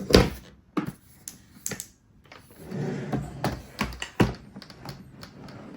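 A keyboard carrying case being handled, with its parts slid and fitted together. A loud knock comes just after the start, then scattered clicks, scraping and sharper knocks about four seconds in.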